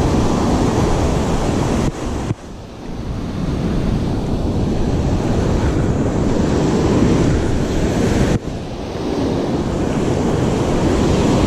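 Ocean surf breaking and washing up the beach, mixed with heavy wind buffeting the microphone. The rushing noise drops off sharply twice, about two seconds in and again about eight seconds in, and builds back up each time.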